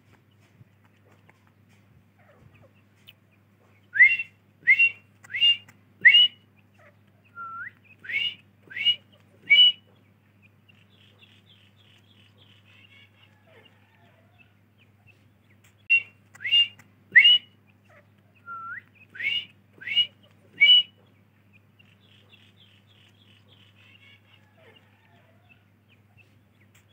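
Grey francolin call: two bouts about twelve seconds apart, each a run of loud, rising whistled notes with a softer hooked note in the middle. Soft, faint chattering follows each bout.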